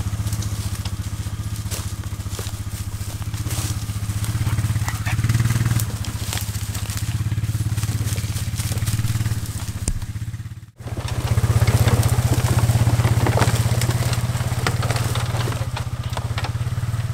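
An off-road vehicle's engine idling steadily, with brush and twigs crackling underfoot. The sound cuts out sharply for a moment about two-thirds of the way through.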